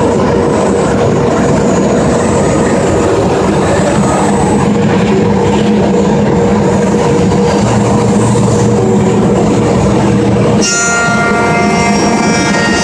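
CNC router spindle and bit cutting the top profile of a handrail: a loud, steady machining noise with a constant hum. About ten and a half seconds in, the sound shifts to a higher, whining set of tones.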